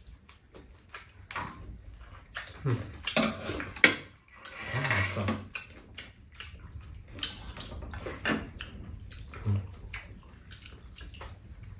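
Two people eating: spoons and chopsticks clicking and scraping against bowls and a pan, with slurps of soup, the longest about five seconds in.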